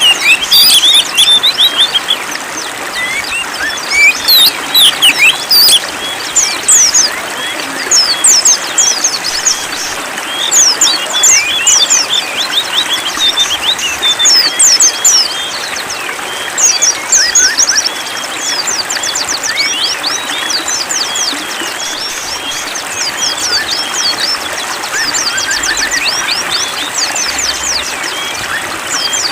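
Several songbirds chirping and singing over a steady hiss of running water, with loud sweeping chirp phrases in the first half giving way to fast, rapid trills in the second half.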